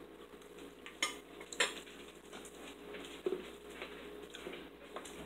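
Metal forks clinking and scraping against ceramic dinner plates during a meal, with a few sharp clinks, the loudest about one and a half seconds in.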